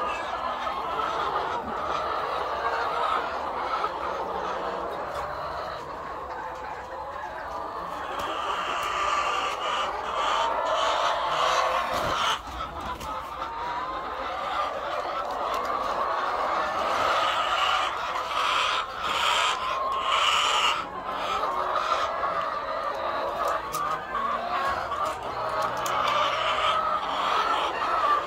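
A crowded flock of white laying hens clucking and calling without a break, many voices overlapping.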